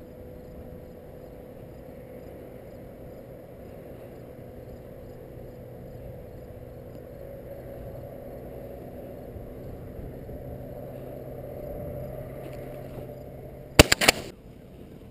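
Low steady outdoor background, then near the end a shotgun fires: a sharp blast followed by one or two more within half a second.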